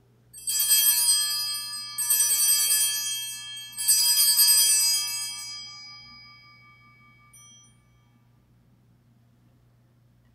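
Altar bells rung three times at the elevation of the consecrated host. Each ring is bright and high, and the third fades slowly away.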